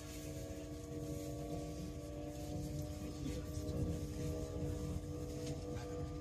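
Cabin sound of a Great Western Railway Class 800 train on the move: a steady hum of several tones from its underfloor drive equipment, over a low rumble of the wheels on the track.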